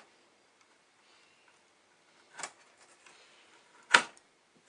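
Video card being pushed into its motherboard slot: a small click about two and a half seconds in, then one sharp, loud click just before the end as the card seats.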